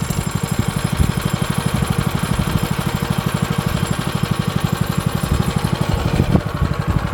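Go-kart's small engine idling with a fast, even putter.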